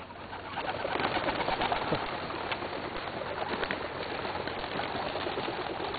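A flock of homing pigeons flying up and away just after release from their crate: a steady mass of wingbeats that swells in about half a second in, with scattered sharper flaps.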